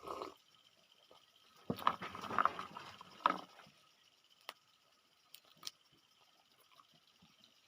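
Close-up mukbang eating sounds: a burst of crackling and chewing on peanuts and boiled taro, loudest about two to three seconds in, followed by a few sharp clicks.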